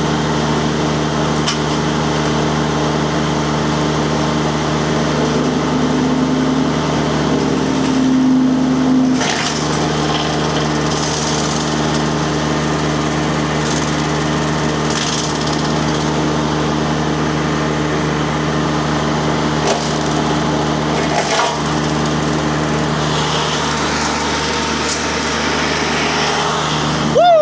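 Rippa RS06 mini skid steer's Kubota diesel running steadily under load while its disc mulcher cuts into a tree, with wood splintering and cracking. A higher note holds for a few seconds about six to nine seconds in.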